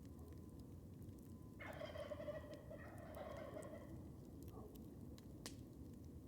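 Wild turkey gobbling, one call of about two seconds in two parts starting about one and a half seconds in, over the soft crackle of a wood campfire with a sharp pop near the end.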